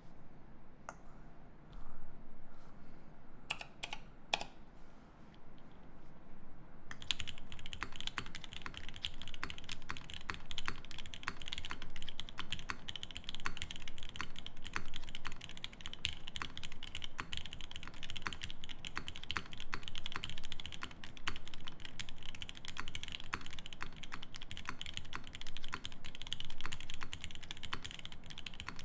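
TGR x Singa Unikorn R2.1 mechanical keyboard with a brass plate, lubed Seal switches and GMK keycaps being typed on. A few separate keystrokes come first, then steady, fast continuous typing from about seven seconds in.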